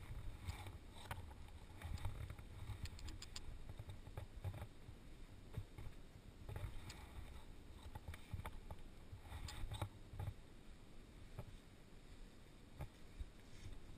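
Low wind rumble on the microphone of a body-worn camera during a rappel down a rock slab, with scattered faint clicks and scuffs of shoes and rappel gear against the rock.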